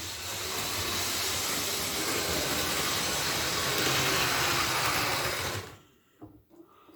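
Model locomotive running along the track: a steady whir of its small motor and wheels that cuts off suddenly about five and a half seconds in.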